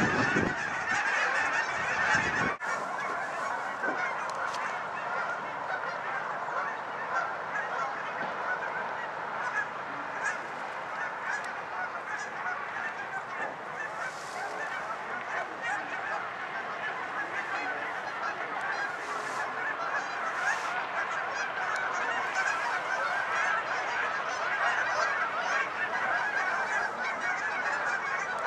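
A large flock of geese honking continuously, many birds calling over one another in a dense chorus. Wind rumbles on the microphone for the first two seconds or so, then stops suddenly.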